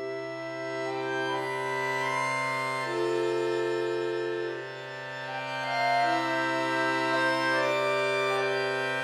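Chromatic button accordion playing a slow piece: one low bass note held steadily underneath while chords and melody change above it, easing off briefly midway before swelling again.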